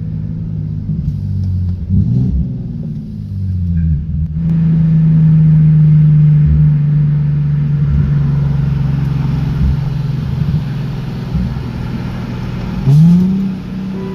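Infiniti V6 car engine running, with a short rev about two seconds in and a sharp rev near the end.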